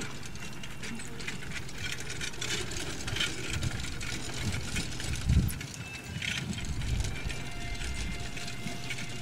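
Two-wheeled-axle driving carriage in motion behind a trotting pony: wheels and harness fittings rattling and clicking steadily over grass, with a dull thump about five seconds in.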